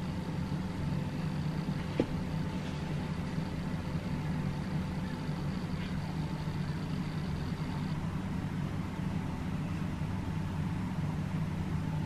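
A steady low machine hum, with a few faint steady tones above it, and one light click about two seconds in.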